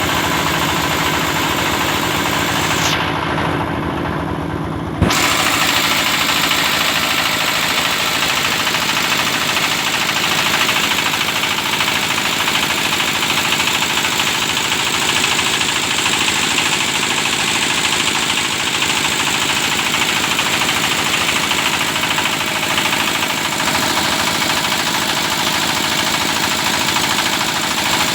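Engine of a hydraulic well-drilling rig running steadily. Around three seconds in it turns muffled for a couple of seconds, then comes back at full level with a sharp click.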